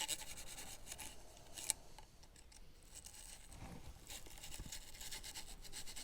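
A small bristle brush scrubbing back and forth between the fins of a car heater blower's fan wheel, faint scratchy brushing strokes, cleaning off the caked dust that unbalances the fan.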